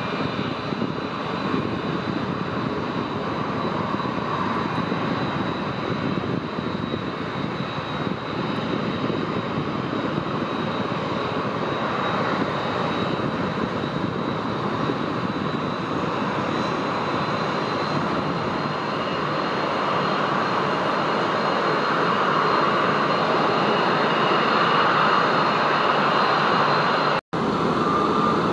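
Airliner engines running with a steady high whine, the noise growing louder in the last third as the plane comes closer. The sound breaks off for an instant near the end.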